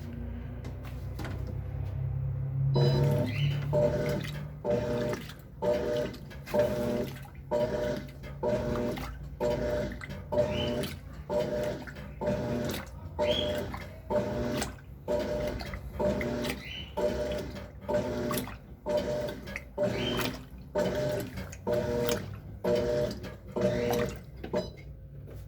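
Electrolux LTC10 top-loading washing machine agitating a full load. After a low steady hum, from about three seconds in the agitator swishes back and forth, about five strokes every four seconds. Each stroke sloshes the water and gives a short rising motor whine.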